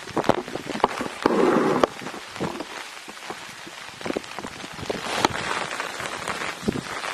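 Rain falling, with scattered close drops tapping irregularly. A louder rushing noise lasts about half a second, roughly a second and a half in.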